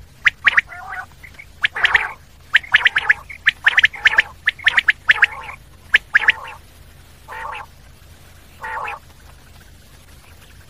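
Common quail calling: quick runs of sharp, high-pitched notes in repeated bursts, then two softer, lower calls, and the calling stops about nine seconds in, leaving a faint hiss.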